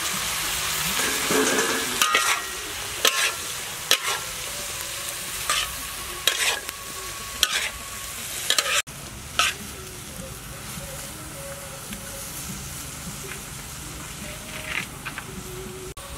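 River shrimp and sliced luffa gourd sizzling in a wok while being stir-fried, with a metal spatula scraping and clanking against the wok about once a second. About nine seconds in the sizzling drops to a quieter hiss, with a few more clinks near the end.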